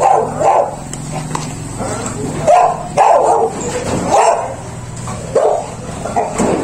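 A dog barking in short, separate barks, about eight times at irregular intervals, over a steady low hum.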